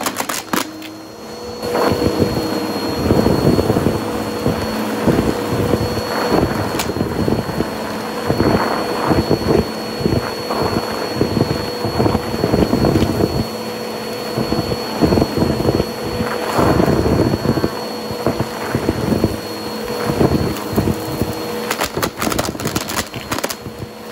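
Bissell OnePass upright vacuum cleaner running on carpet with a steady motor hum, sucking up deflated balloons and styrofoam chunks. Dense, irregular rattling and crunching of debris in the nozzle sets in about two seconds in and goes on throughout.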